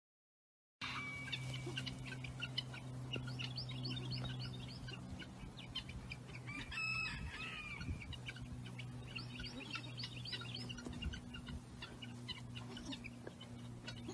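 After a second of silence, small birds chirp in quick runs, and a rooster crows once about seven seconds in. A low steady hum runs underneath.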